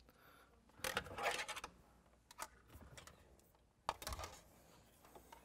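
Wire coat hanger and cable scraping and clicking against plastic dash trim as they are fished up behind the dash. Scattered light rustles and clicks, with the sharpest click about four seconds in.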